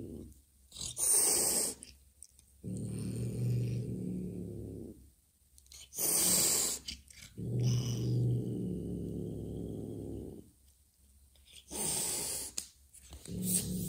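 Mother cat hissing sharply three times, each hiss followed by a long low growl of two to three seconds: a defensive warning at an unfamiliar kitten that smells foreign to her.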